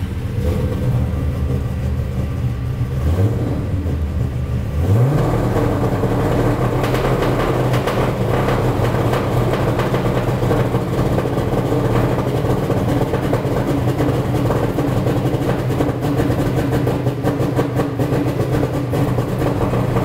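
Dyno engine starting, then revved twice up to a 3,000 rpm ignition-cut rev limiter set for flames. From about five seconds in it is held on the limiter, running unevenly with rapid irregular pops as the ECU cuts ignition events, and the character changes as the maximum cut count is switched.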